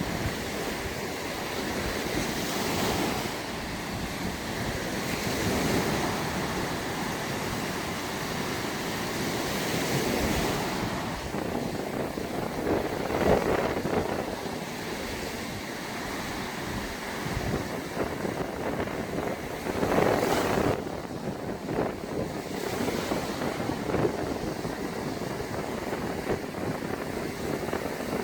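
Sea waves breaking and washing onto a sandy beach in a steady surf, swelling every few seconds, with wind buffeting the microphone.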